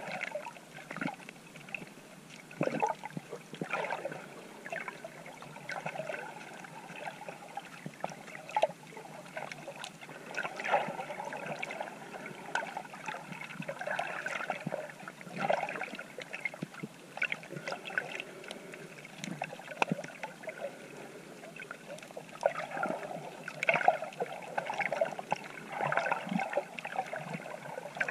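Water sloshing and gurgling around a GoPro camera carried by a swimmer, with irregular small clicks and surges throughout.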